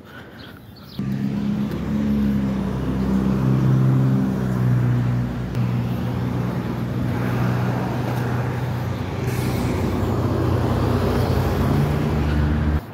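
A nearby motor vehicle's engine running loudly, its low pitch rising and falling as it revs, over a hiss of traffic. It starts suddenly about a second in and cuts off abruptly near the end.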